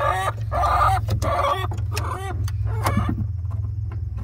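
A hen clucks in a run of short repeated calls, about two a second, that die away about three seconds in. A steady low hum runs underneath.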